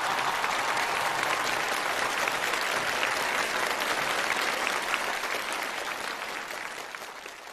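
Studio audience applauding, steady at first and then dying away over the last two seconds or so.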